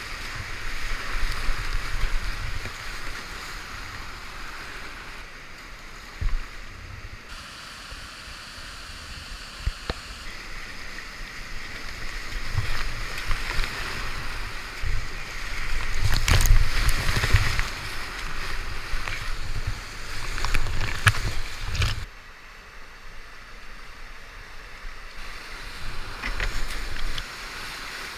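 River whitewater rushing around a kayak, with splashes and paddle strikes as it runs rapids; the rush and splashing are loudest a little past the middle. A low rumble on the microphone drops away about three-quarters of the way through.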